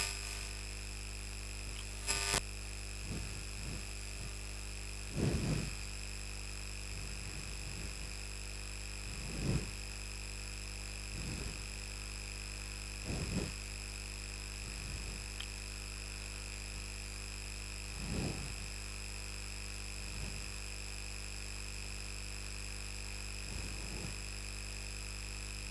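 Marker pen strokes on a whiteboard as lines are drawn: short scratchy strokes every few seconds, one sharper tap about two seconds in. Under them is a steady background hum with faint high, even tones.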